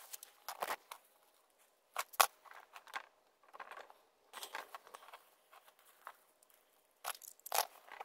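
Silver foil tape being torn and pressed onto a heat-tape cable on copper pipe: short crinkling, tearing rasps every second or two, the loudest about two seconds in and near the end.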